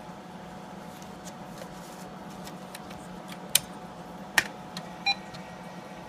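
Texas Instruments Portable Professional Computer running with a steady hum while its floppy drive loads a boot disk, with light ticking throughout. Two sharp clicks come about three and a half and four and a half seconds in, and a short beep about five seconds in.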